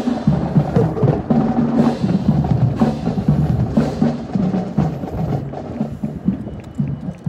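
Marching drum line playing a cadence, with bass drum beats about once a second under snare rolls.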